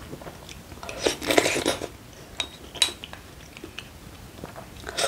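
A person eating rice and soybean stew: a short burst of wet chewing about a second in, then a few sharp, light clinks of utensils against dishes.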